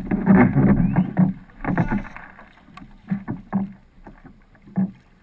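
Wing-paddle strokes splashing and water slopping against the hull of a flatwater racing kayak, close to the bow-mounted microphone; dense irregular splashing for about two seconds, then a few separate splashes.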